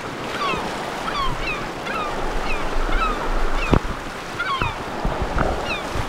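A flock of birds calling, many short downward-falling calls overlapping, over the wash of water and wind. A single knock sounds about two-thirds of the way through.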